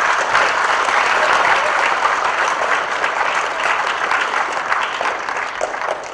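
An audience of schoolchildren applauding, dense and steady clapping that thins out a little near the end.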